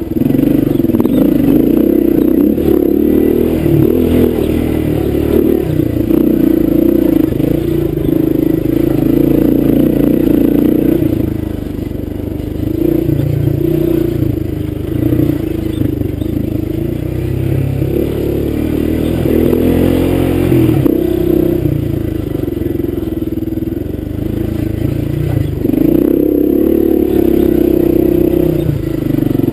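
Honda dirt bike engine running under changing throttle on a rough trail. The engine note drops back about twelve seconds in and again past twenty seconds, then picks up.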